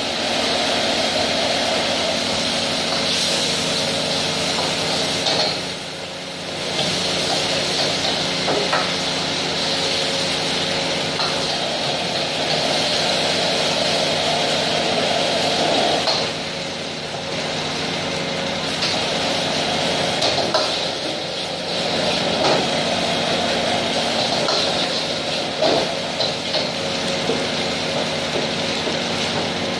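Gas wok burner running at full flame with the extractor hood fan humming, a steady rush that dips briefly twice. A few sharp metal clanks of a spatula or ladle on the wok are scattered through it as rice is stir-fried.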